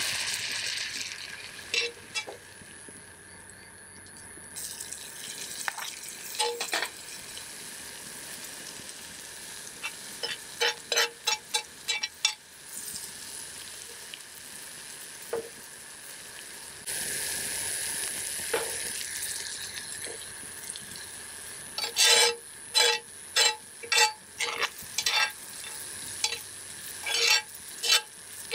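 Food frying in a pan with a steady sizzle, while a utensil clinks and taps against the pan in quick runs as the food is stirred.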